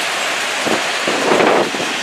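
Freight train cars rolling past close by: a steady rushing noise of wheels on rail, swelling briefly about a second and a half in.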